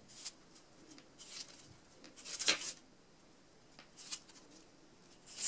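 Green floral tape being stretched and wound around a wire flower stem: a few faint, short rustles, the loudest about two and a half seconds in.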